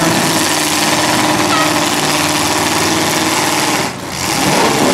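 Engines of several full-size demolition derby cars running loud and steady as the cars maneuver, with a brief drop in level about four seconds in.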